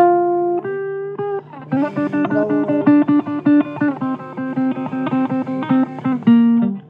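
Blues guitar music: two held picked notes, then from about two seconds in a fast run of picked notes, closing on a low note near the end.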